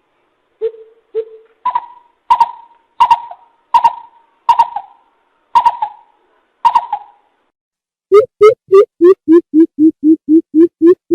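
Greater coucal calling: a slow series of deep hoots that steps up in pitch about two seconds in, then breaks into a fast run of about four hoots a second near the end.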